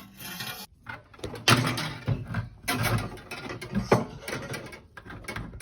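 Hand drain snake scraping and rattling in irregular strokes as it is worked through a dishwasher's clogged drain line, clearing out debris.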